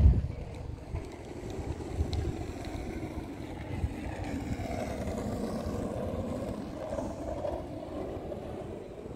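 Wind buffeting the microphone, strongest right at the start, over a steady background hum of engines.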